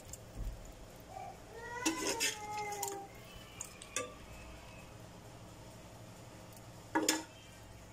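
Metal spoon knocking and clinking against a glass Pyrex baking dish as cooked meat and green peppers are placed in it: a few scattered knocks, the loudest near the end. A short pitched, gliding sound comes about two seconds in.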